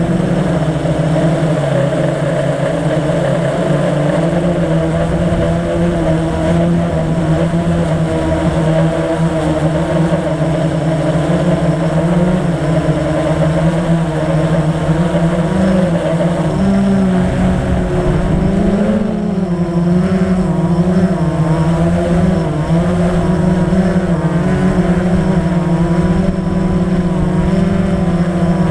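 Blade 350 QX quadcopter's brushless motors and propellers humming steadily up close, a loud multi-toned drone whose pitch wavers for a few seconds about two-thirds of the way through as the motor speeds shift.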